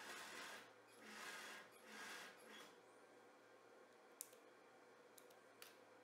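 Small scissors snipping sewing thread: one sharp snip about four seconds in and two lighter clicks shortly after, heard over the low steady hum of an industrial sewing machine's motor. Three short soft bursts of noise come in the first couple of seconds.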